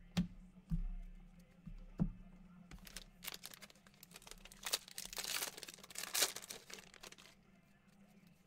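A few light knocks, then several seconds of crinkling and tearing as the wrapper of a trading card pack is ripped open.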